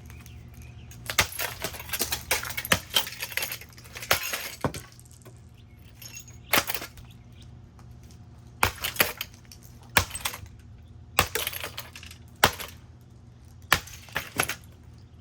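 A rusted-out Harbor Breeze ceiling fan being smashed with repeated blows, about a dozen sharp impacts in irregular groups with clinks and rattles of breaking parts.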